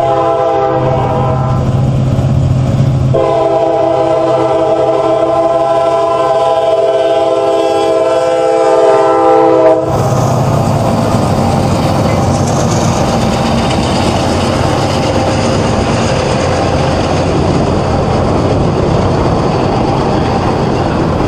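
CSX diesel freight locomotive's air horn blowing for a grade crossing over the engine's hum, then a long steady blast that cuts off about ten seconds in as the locomotive passes. After that, the rumble and clatter of freight cars rolling by.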